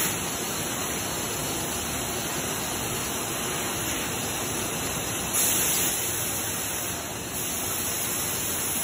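Steady rushing machine noise from a running Homag BMG 311 5-axis CNC router, with no clear pitch to it. A brief, brighter hiss rises over it about five and a half seconds in.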